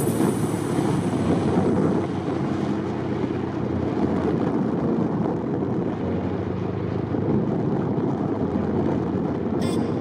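Steady rumble of engine and road noise from a vehicle driving along a road. Music with sharp beats comes in near the end.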